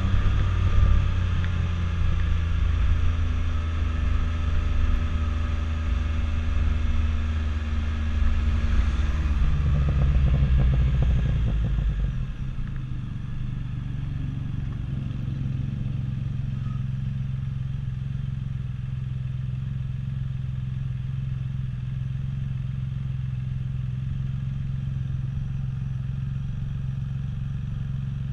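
Can-Am Spyder F3-S's Rotax 1330 inline-three engine running while the bike rolls along slowly with wind noise on the microphone. About twelve seconds in it settles to a steady idle at a stop.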